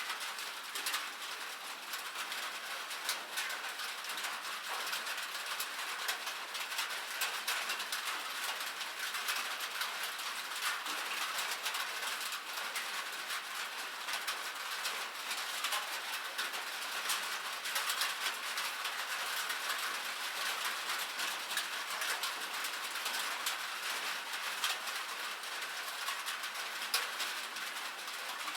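Rain pattering on a cabin roof: a dense, steady stream of small drop ticks over a hiss.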